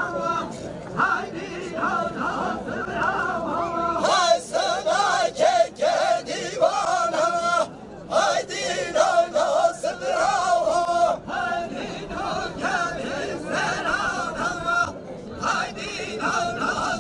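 Men singing a Kurdish folk dance song for a govend line dance, with crowd chatter behind.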